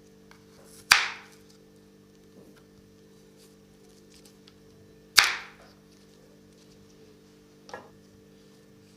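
Two loud, sharp impacts about four seconds apart, each dying away quickly, then a much fainter third one near the end, over a steady low hum.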